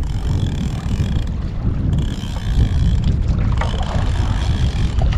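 Steady low wind rumble buffeting the microphone aboard a small fishing boat at sea.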